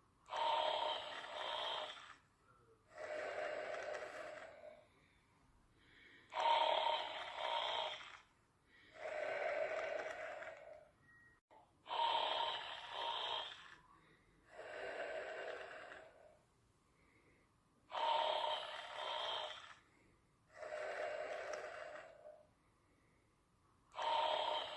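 Snoring in a steady rhythm: two snoring sounds per breath cycle, each lasting about a second and a half, repeating about every six seconds with short quiet gaps between.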